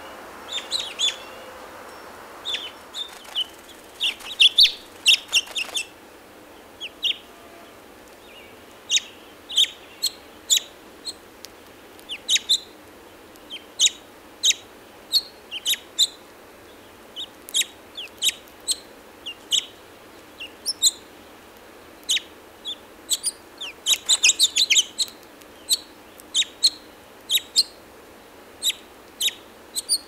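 House finch call notes: short high chirps repeated every second or so, with quick flurries of several chirps about four seconds in and again near the end.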